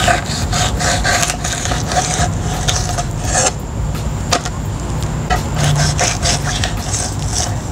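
Knife slicing and scraping through fish fillets against a wooden cutting board while filleting opaleye: an irregular run of short rasping strokes of the blade on the wood.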